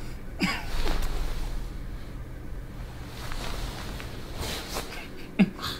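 A person's short breathy vocal sounds, a few brief gasps, one about half a second in and a sharper one near the end, over faint background.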